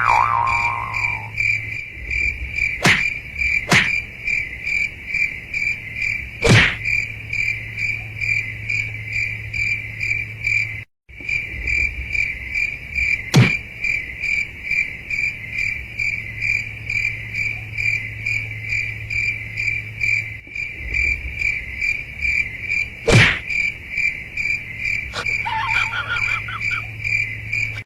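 Cricket chirping in a steady pulsing rhythm, about four chirps a second, over a low steady hum, with a few sharp clicks scattered through.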